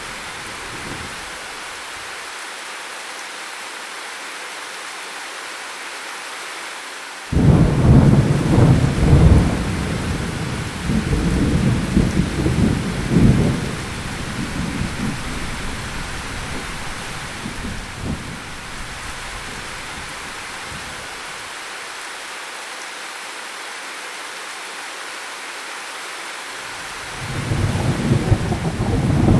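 Steady rain with rolling thunder: a thunderclap breaks suddenly about seven seconds in and rumbles on for several seconds, and another roll of thunder builds near the end.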